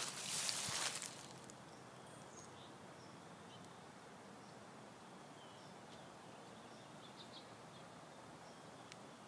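Footsteps crunching through dry fallen leaves, stopping about a second in. After that there is a faint outdoor background with a few scattered high bird chirps.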